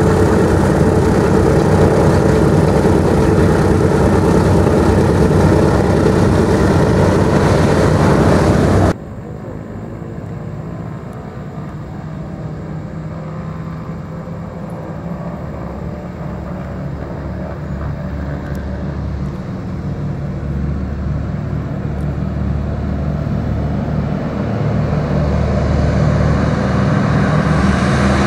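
Four radial piston engines of a B-24 Liberator running close by, a loud, dense drone that cuts off abruptly about nine seconds in. After that, the four radial engines of a B-17 Flying Fortress run on the runway, at first more distant and growing steadily louder as the bomber approaches.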